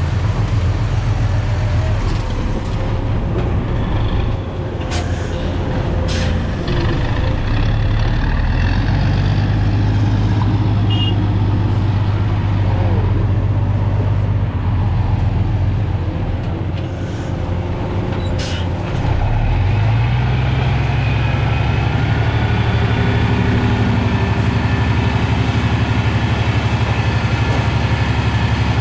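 Heavy truck engine running, its note shifting up about two-thirds of the way through, with a few short sharp clicks or hisses on top.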